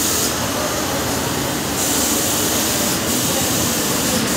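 Car-wash high-pressure washer running: a steady rushing hiss of water spray over the drone of its pump motor.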